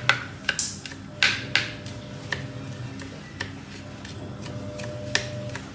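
Kitchen knife mincing garlic on a cutting board: irregular sharp knocks, several close together in the first two seconds, then fewer and further apart.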